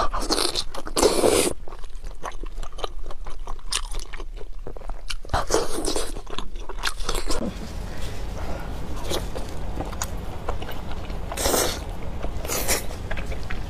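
Close-miked mouth sounds of eating chili-oil-sauced lamb intestines: separate wet, chewy bites and chewing, with the loudest bite in the first second and a half. A faint steady low hum sits underneath from about halfway on.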